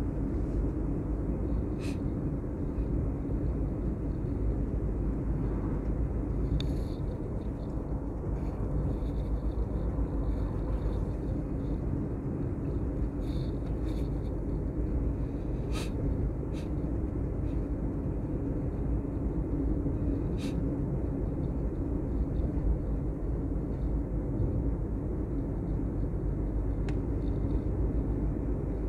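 Steady low rumble of a vehicle travelling along a road, with engine, tyre and wind noise blended together and a few faint ticks.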